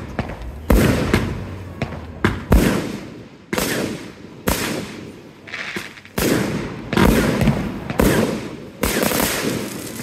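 Aerial firework shells bursting, a sharp bang about once a second, each trailing off in a long echoing rumble.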